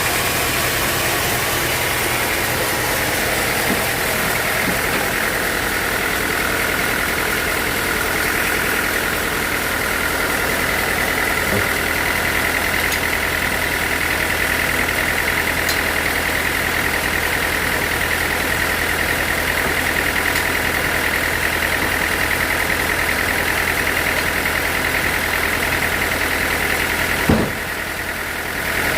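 Sawmill machinery running steadily: a constant engine hum with a steady high whine over it. Near the end a single sharp knock, then the sound drops for a moment before coming back.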